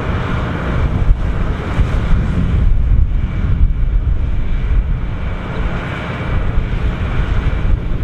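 Massey Ferguson 9380 Delta combine harvester running while harvesting wheat: a steady drone of engine and threshing, with wind buffeting the microphone.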